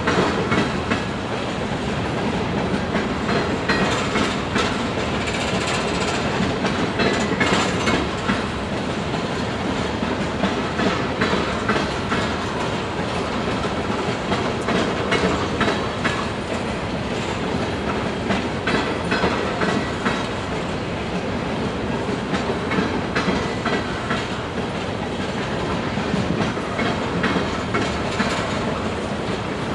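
Freight train of open-top hopper cars rolling steadily past, the wheels clicking over the rail joints again and again under a continuous rumble.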